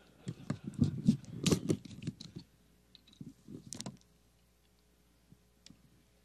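A quick, irregular run of clicks and soft knocks for about four seconds, then faint room tone with an occasional tick.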